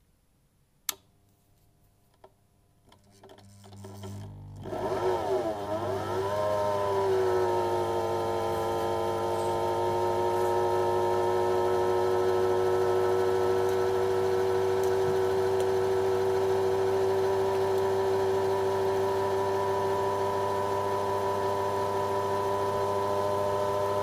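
Belt-and-pulley drive of a W12 watchmaker's lathe milling setup starting up: a sharp click about a second in, then a low hum, and from about four seconds a whine that wavers in pitch as it comes up to speed, settling after a few seconds into a steady whine of several tones.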